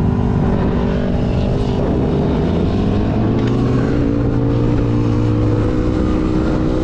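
Car engines running, with steady engine tones over a dense low rumble and a pitch that rises slowly through the middle.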